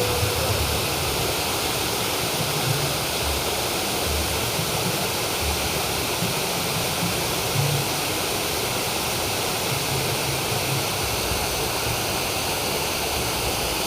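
Steady rush of flowing water, with low rumbles that come and go.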